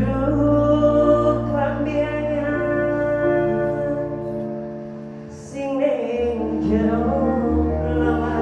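A woman singing long held notes into a microphone with a live band of keyboard and electric guitar. The accompaniment softens about halfway, then comes back in with a low bass line about six seconds in.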